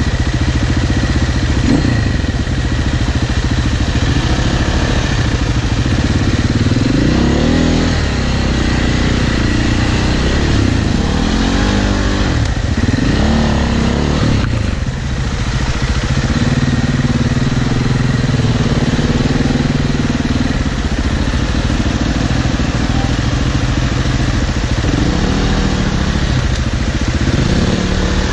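Enduro motorcycle engine run at low speed over rocks, the revs rising and falling in short throttle blips, several of them between about 7 and 14 seconds in and again near the end, with steadier low running in between.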